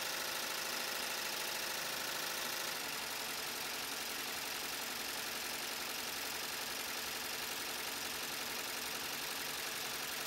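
MakeIT P&E 12-needle commercial embroidery machine stitching: a fast, steady mechanical clatter of the needle bar and hoop drive. The sound shifts and gets slightly quieter about three seconds in.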